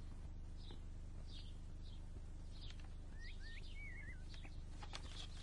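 Faint birds chirping in short scattered notes, with a quick wavering call about three seconds in, over a steady low hum.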